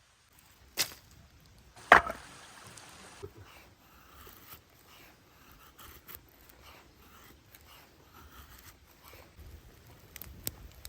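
Two sharp knocks about a second apart, the second louder, then faint scattered clicks and rustling of things being handled.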